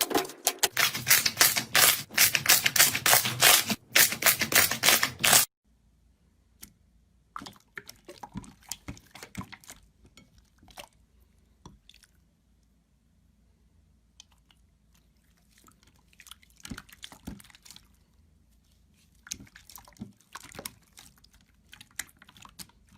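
Slime being squished and pressed: dense crackling clicks for about the first five seconds, then fainter scattered wet clicks and squishes.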